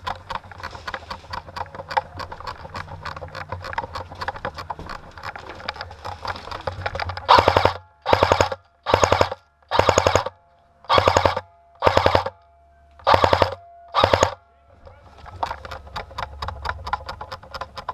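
Airsoft gun firing eight short full-auto bursts of fast clicks in quick succession, loud and close, from about seven seconds in. Before and after the bursts, quieter rapid ticking of gunfire.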